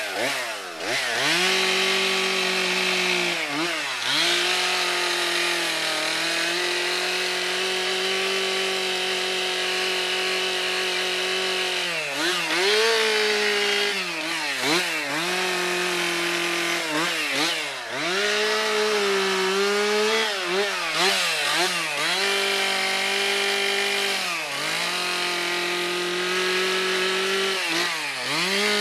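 Stihl two-stroke chainsaw running at high revs while carving into a wooden log. Its pitch drops and climbs back repeatedly, over a dozen times, as the throttle is worked and the chain bites into the wood.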